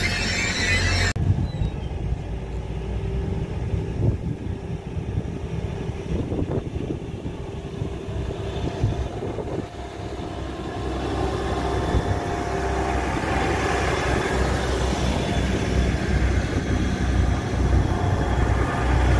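Grand Central Class 180 diesel multiple unit running along a station platform, its underfloor diesel engines and wheels rumbling, growing louder in the second half. A high squeal in the first second cuts off suddenly.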